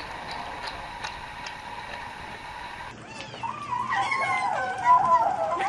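A cat eating and vocalising: faint clicks at first, then from about halfway in a long, wavering, pitched moan-like meow that rises and falls, the 'nom nom' noise some cats make over their food.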